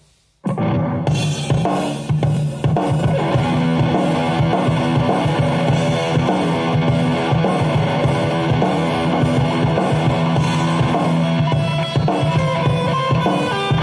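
Kramer Assault 220 FR electric guitar playing a riff over a drum backing track. The drums and guitar start together about half a second in, with a steady kick-drum pulse underneath.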